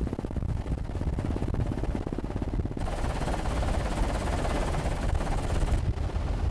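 Helicopter rotor noise: at first a fast, even pulsing of the blades heard from aboard. About three seconds in it switches suddenly to the steadier rushing sound of an NH90 Caïman transport helicopter flying low.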